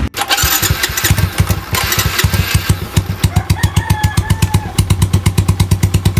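Suzuki Smash 115 motorcycle's single-cylinder four-stroke engine running through an aftermarket AUN-style exhaust pipe. The pulses are uneven for the first few seconds, then settle into a steady idle of rapid, even exhaust pops.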